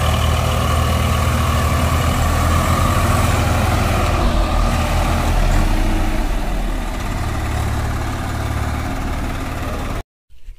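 Swaraj 744 FE tractor's three-cylinder diesel engine running steadily under load while towing a stuck tractor out of mud. The sound eases off a little towards the end, then cuts off abruptly.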